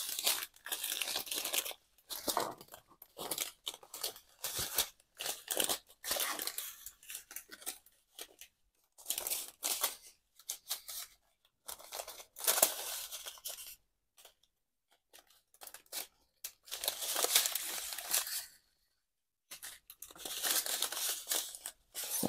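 Clear plastic bags crinkling and rustling in irregular bursts as diamond painting drill packets are handled and packed back into their plastic packaging, with two short pauses in the second half.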